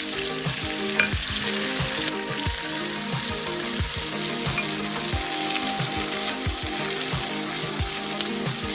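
Sliced onion, curry leaves and green chillies sizzling steadily in hot oil in a kadai, sautéing as part of a tempering with mustard and fennel seeds.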